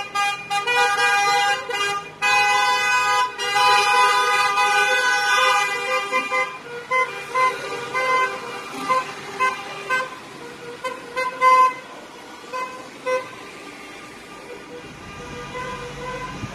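Car horns honking from a slow motorcade: several horns sound together almost continuously for the first six seconds or so. The honking then thins to short separate toots and dies out, leaving the low sound of the cars rolling past near the end.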